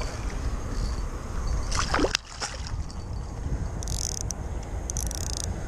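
Water splashing and sloshing as a hooked sea bass thrashes at the surface near the angler, in short bursts about two, four and five seconds in, over a steady low rumble.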